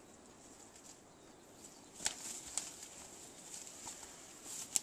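Footsteps and brush rustling as a hiker pushes through dense undergrowth, with a few sharp twig cracks about two seconds in and again near the end.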